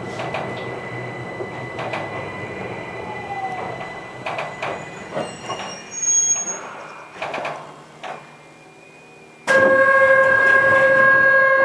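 Keihan Keishin Line train slowing to a stop, heard from on board. There are clicks from the wheels and brakes and a short falling squeal, and the running noise dies away to quiet about eight seconds in. About a second and a half later a loud, steady, chord-like tone starts and holds for about three seconds.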